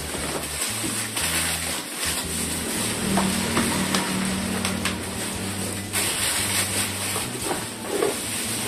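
Bubble wrap and plastic packaging crinkling and rustling as a wrapped part is handled inside a cardboard box, with background music carrying a steady bass line underneath.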